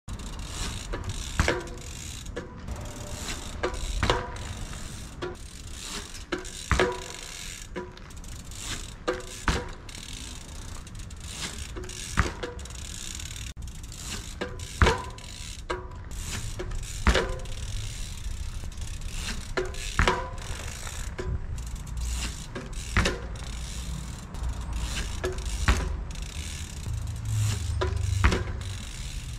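27.5-inch mountain bike's rear freewheel hub ticking as it coasts, with repeated metallic clanks and thumps every one to three seconds as the bike lifts and lands in bunny hops on asphalt.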